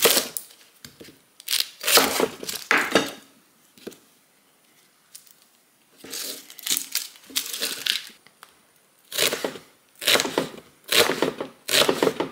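Chef's knife slicing through a red onion and striking a bamboo cutting board, in groups of strokes with a quiet pause of about two seconds a third of the way in.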